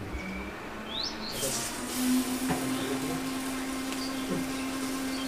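A turmeric-coated piece of fish sizzling as it starts frying in shallow oil in a pan on a clay wood-fired stove; the sizzle starts about a second and a half in and keeps going. A bird chirps once about a second in, and a steady low hum comes in about two seconds in.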